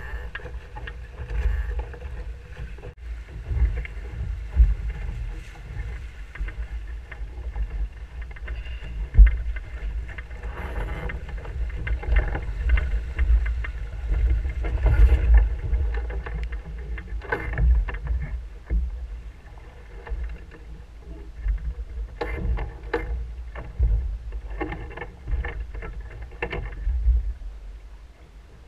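Wind buffeting the microphone of an action camera mounted low on a Musto Skiff, with water rushing and splashing along the hull as the dinghy sails through a gybe. Scattered knocks and clatter from the boat come and go, more of them in the last several seconds.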